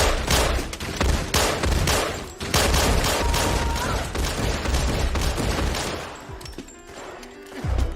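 Guns firing in rapid, overlapping volleys at a shooting range. The shots start abruptly and keep up densely for about six seconds, then thin out.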